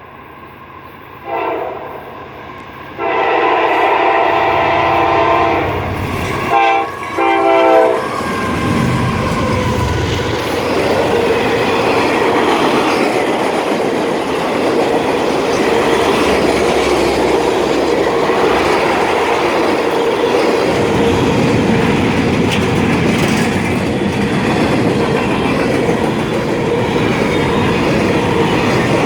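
Locomotive horn on an approaching freight train: a short blast about a second in, a long blast from about three seconds, then two more short blasts. The train then rolls past loudly, wheels clacking over the rail, with a steady squeal from a squeaking wheel in the consist.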